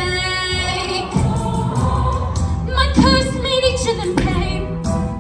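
A choir singing with music behind it, holding long notes, with new phrases starting about a second in and again about three seconds in.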